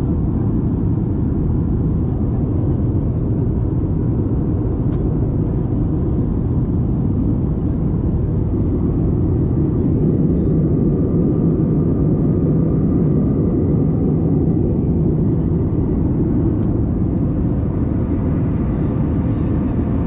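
Airbus A320-family jetliner cabin noise in cruise: a steady low rushing drone of airflow and engines, with a faint thin whine above it.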